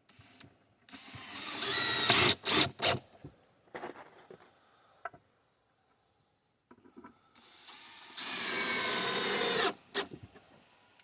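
Handheld power tool run in two bursts of about two seconds each, its motor whine rising as it spins up and then holding steady, each burst followed by a few sharp knocks.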